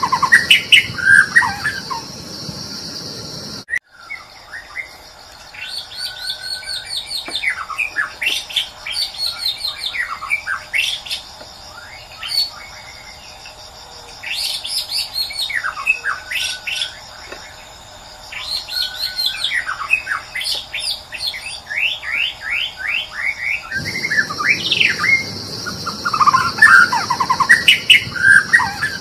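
White-rumped shama (murai batu) singing loud, varied whistled phrases over a steady high buzz. About four seconds in, the sound cuts sharply to a different recording of bird song: quick rising whistles and rapid trills, including a fast run of repeated notes. Near the end it cuts back to the shama's song.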